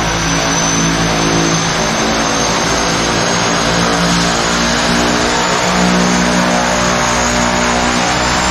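Turboprop airplane engines running at high power, a dense steady noise with a high whine that slowly rises in pitch.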